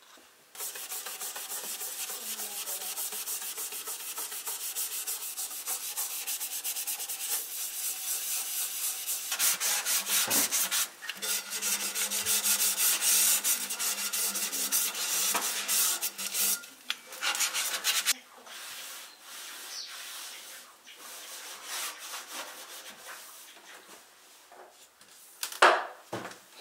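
Fast back-and-forth scrubbing of a kitchen surface, growing harder about ten seconds in and stopping after about sixteen seconds. Lighter, scattered rubbing follows, then a sharp knock near the end.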